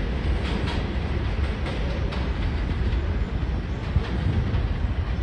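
R142 subway train running away along the elevated steel structure: a steady low rumble with occasional clacks of wheels over rail joints.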